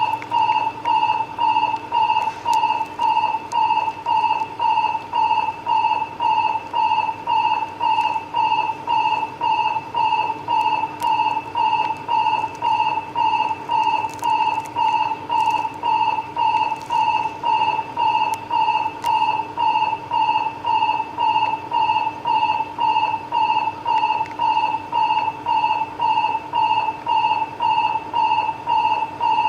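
Railway station platform train-approach warning alarm: a loud electronic beep repeating evenly at a steady, quick pace.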